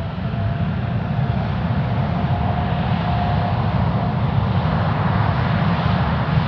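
Boeing 787-9 airliner's jet engines at takeoff thrust: a loud, low, steady rumble with a faint whine that rises slightly in pitch.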